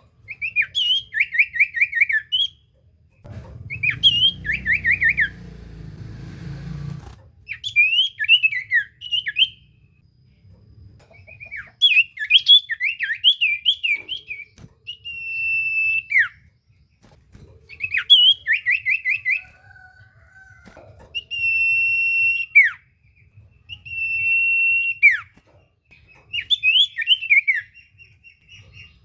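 Common iora (cipoh) singing in bursts: quick runs of chirping, trilled notes alternating with long, steady whistles that drop sharply at the end. A low rumble runs underneath for a few seconds near the start.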